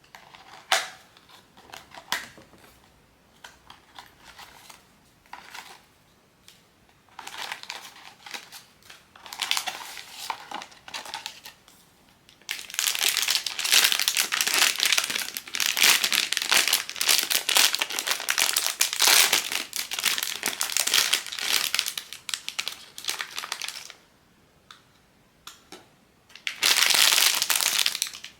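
Plastic packaging of a blind box being handled and crumpled: a few sharp clicks at first, then short bouts of crinkling, a long stretch of steady dense crinkling, and one more loud burst near the end.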